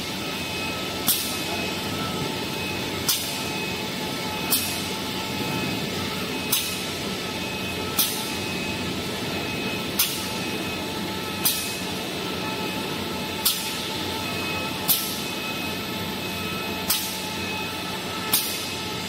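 Toilet-paper roll packing machine running: a steady mechanical hum with several held tones, and a short, sharp burst of exhausting air from its pneumatics about every one and a half to two seconds, eleven in all.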